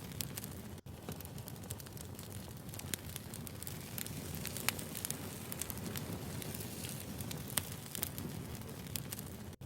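Wood fire crackling: a steady low rumble of burning logs with scattered sharp pops and snaps, broken by a momentary silence about a second in.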